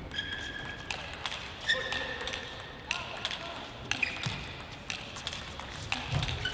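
Table tennis ball in a rally, sharp clicks off paddles and table about every half second, with brief squeaks of players' shoes on the court floor.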